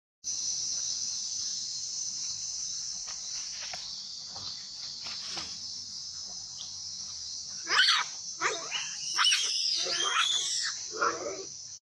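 Steady high-pitched insect drone, then from about eight seconds in a run of loud, shrill macaque squeals and screams, several short calls gliding up and down over about three seconds.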